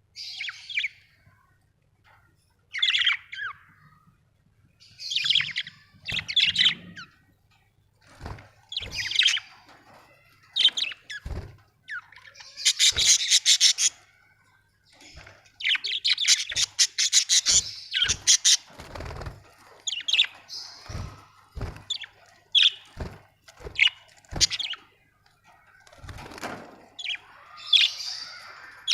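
Budgerigars chirping and chattering in repeated bursts, with a denser run of warbling chatter in the middle. Short soft knocks are mixed in from about a third of the way through.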